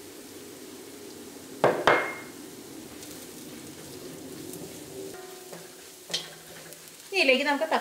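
Onions and chilli powder sizzling in a cast-iron kadai, with a metal spatula knocking twice against the pan about two seconds in and scraping through the masala near the end.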